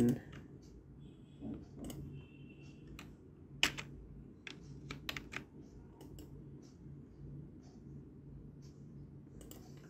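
Scattered clicks of a computer keyboard and mouse, irregular and a few a second at most, over a faint steady low hum.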